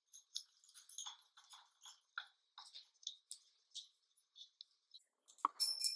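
Small metallic clicks and ticks of screws and a steel mounting plate being handled and fitted by hand to a chair seat. Near the end comes a louder metal clink that rings briefly.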